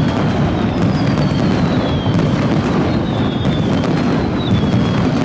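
Aerial fireworks going off in a dense, continuous run of bursts and crackling pops, with thin whistles sliding down in pitch about once a second.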